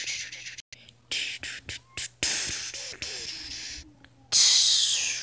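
Mouth-made fight sound effects for a toy battle: a few short hissing bursts, then a long hiss, then the loudest hiss of all near the end, which fades away.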